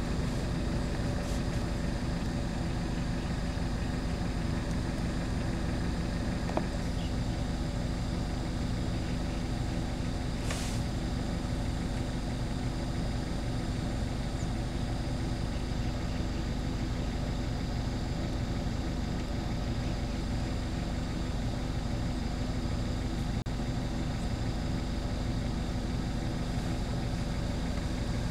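Vehicle engine running steadily: an even, unchanging hum.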